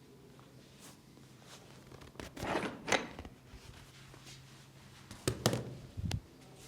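Hands massaging: a few soft thuds and rubbing sounds in two short clusters, one about two to three seconds in and another around five to six seconds in, over a faint steady low hum.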